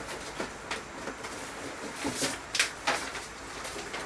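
A few short rustling and clicking handling sounds over a steady background hiss.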